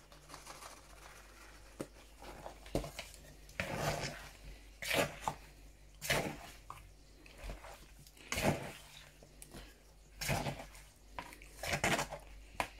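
Metal tongs tossing flour-coated chicken pieces in a bowl, knocking and scraping against the bowl at irregular moments every second or two.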